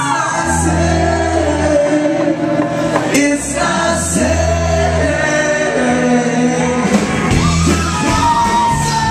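Live rock band playing, with a drum kit and guitar under a lead singer's voice, heard from within the crowd through a small camcorder's microphone.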